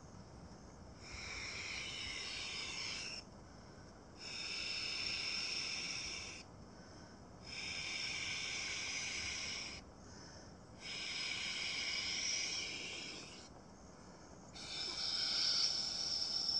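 A man blowing up a Klymit Pillow X Large inflatable camping pillow by mouth through its valve: five long breaths, each a steady hiss of about two seconds with a short pause between. The last breath is still going at the end.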